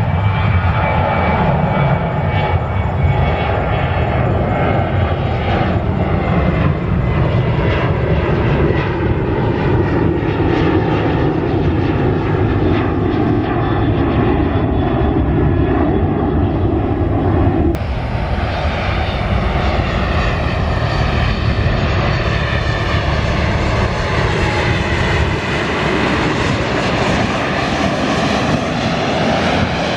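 Jet airliner engines running loud and continuous as an aircraft passes on the runway, the pitch of the roar slowly shifting. About 18 seconds in the sound changes abruptly to another aircraft pass, with a wavering, sweeping roar.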